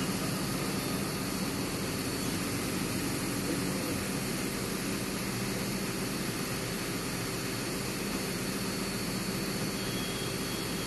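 Zoomlion ZR185 piling rig's diesel engine running at a steady speed, a constant drone that does not change.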